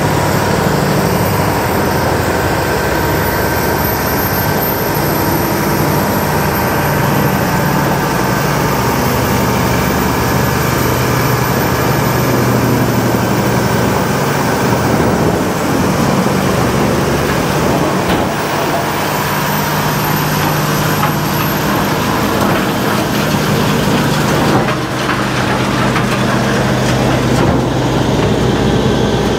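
Rotochopper B66 L-series horizontal wood grinder running steadily while grinding up logs, a loud continuous machine noise whose engine tone shifts slightly now and then.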